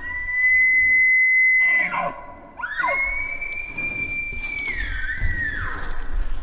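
Bull elk bugling twice: a high whistle that rises and holds for about two seconds, then a second long whistle that holds, steps down in pitch and fades near the end.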